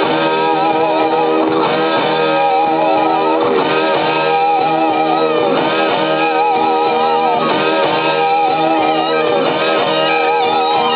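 Rock music: several layered electric guitar lines holding wavering notes over a band, with no singing.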